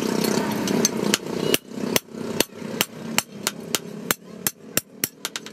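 Hand hammer striking a leaf-spring steel knife blank on a steel anvil block, in sharp metal-on-metal blows about two or three a second that come quicker and lighter toward the end. A steady background noise fades out after the first second and a half.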